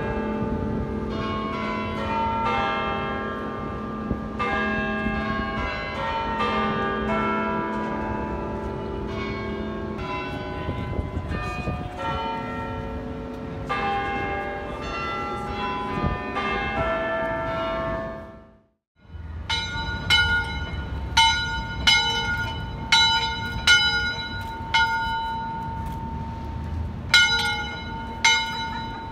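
A chime of church bells, cast in 1865, rings a tune, with many notes of different pitch overlapping as they ring on; it fades out about two-thirds of the way through. Then a single bell, thought by some to be an old railroad bell, is struck again and again at an uneven pace, each stroke ringing the same clear note.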